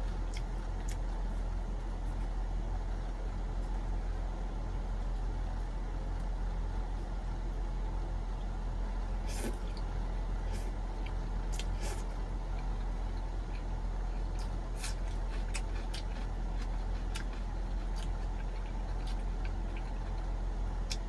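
Steady low hum of the camper's air conditioner running, with a few light clicks.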